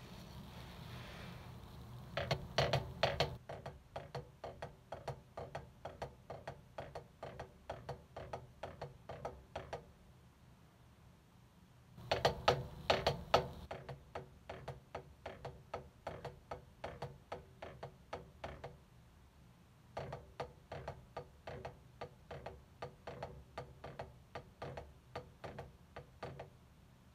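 Wooden drumsticks playing flams, a grace note just ahead of each main stroke. There are three runs of steady strokes, about three a second, each opening with a louder passage and broken by short pauses.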